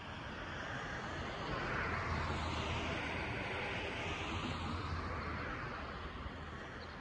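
A passing vehicle: its noise swells over the first two seconds, peaks around two to four seconds in, then fades away.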